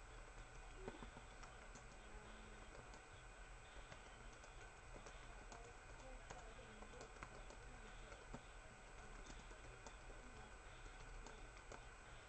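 Near silence: faint, irregular typing clicks on a laptop keyboard over a steady low hum.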